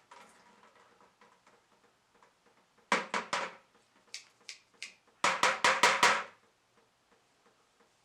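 Two quick runs of sharp knocks or clatters: about three strokes around three seconds in, then about five strokes a couple of seconds later, with faint ticking between and after.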